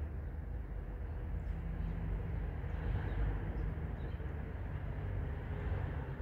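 Steady low outdoor rumble with no clear single source, with a few faint short chirps high above it.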